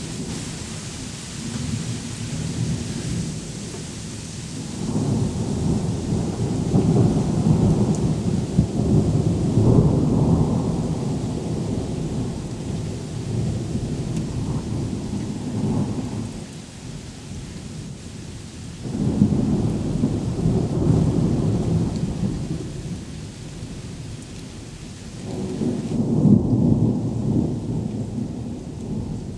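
Thunder rumbling in three long rolls, the longest and loudest in the middle, over a steady hiss of rain that thins out near the end.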